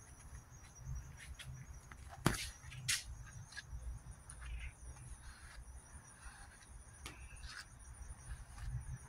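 A hand brush stroking through a cat's fur: soft scratching with scattered sharp clicks, the two loudest a little over two and about three seconds in. Insects chirr steadily and high-pitched in the background.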